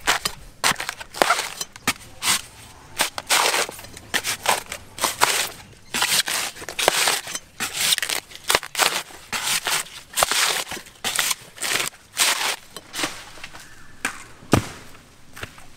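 Heavy knife chopping into the fibrous husk of a green coconut: a quick, irregular run of sharp strikes mixed with rasping as husk fibre is hacked and torn. The chopping thins out near the end, with one last sharp knock.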